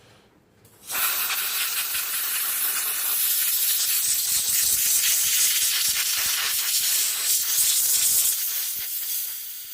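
Compressed-air blow gun blasting a steady hiss through a solvent-wetted transmission oil strainer to blow metal particles out of its mesh. It starts about a second in and eases off near the end.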